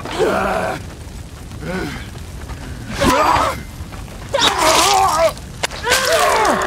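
Fighters' strained cries and groans in a brutal melee, four outbursts in a row, with a sharp impact about three seconds in.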